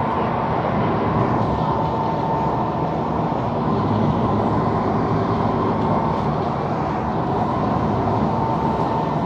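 SMRT C151 metro train running steadily along the track, a continuous rumble and hiss. A faint high whine fades in and out a few times over it.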